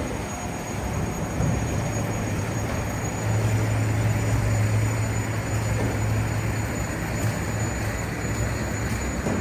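Low, steady rumble of passing vehicles, swelling about three seconds in and easing off after about six seconds.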